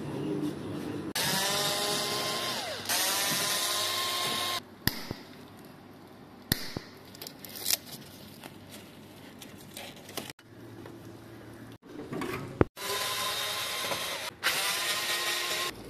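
A cordless drill-driver runs in four short bursts, two early and two late, on screws in a sheet-metal panel. Its motor whine rises and falls in pitch with each burst. Sharp clicks and knocks fall in the quieter stretch between the bursts.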